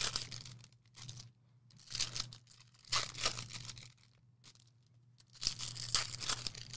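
Foil trading-card pack wrappers tearing and crinkling in about five short bursts with brief pauses between, the last one longer.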